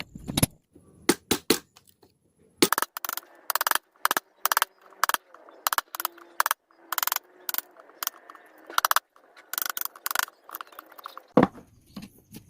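A mallet striking a wood chisel, a long series of sharp knocks at an uneven pace, roughly one to three a second, with a short pause about two seconds in, as the chisel chops out a dovetail joint.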